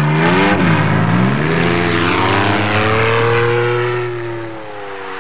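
Monster truck engine sound effect revving. The pitch climbs, dips about a second in, climbs again and holds, then falls away and fades near the end.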